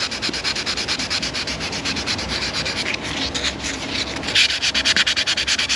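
Sandpaper rubbed by hand in quick, even back-and-forth strokes over a black leather seat back, sanding out a scuff in the leather.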